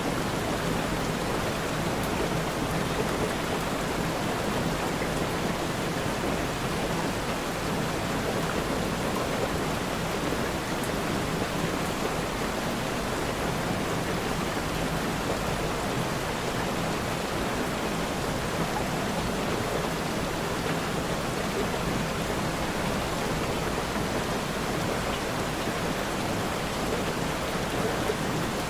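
Steady, even rain noise with no single drops standing out: a continuous hiss of rainfall.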